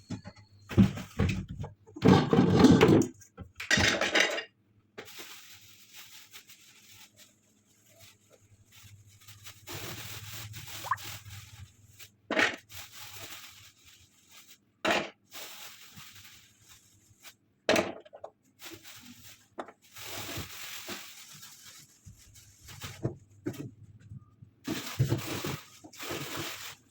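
Irregular knocks, clinks and scrapes of pots and dishes being handled, with short quiet gaps between them; the loudest clatter comes about two to three seconds in.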